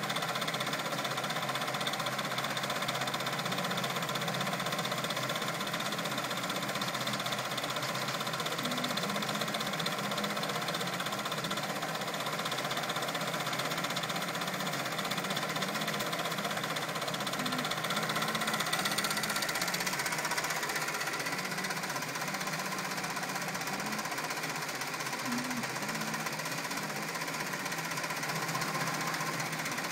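Brother multi-needle embroidery machine running steadily as its needle stitches a monogram letter into a red velvet stocking cuff.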